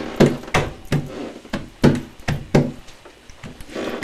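Footsteps feeling their way down a flight of stairs in the dark: a run of uneven knocks, about two or three a second.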